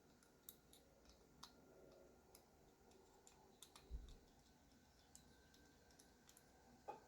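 Faint, scattered small clicks and taps of a pocket knife and its screws and tools being handled during reassembly, with a slightly louder knock about four seconds in and another near the end.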